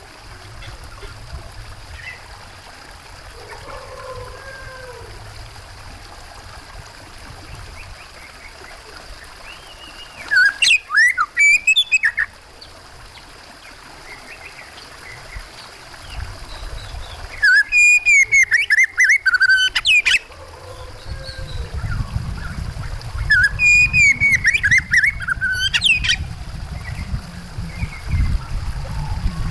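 Oriental magpie-robin (kacer) calling in three loud bursts of quick, sweeping whistled notes, with faint chirps between them. Running water rushes low underneath, louder in the second half.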